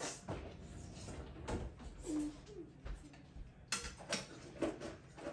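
Spoons and chopsticks tapping and clinking against soup bowls at a dining table: scattered small clicks and knocks, irregular and close together.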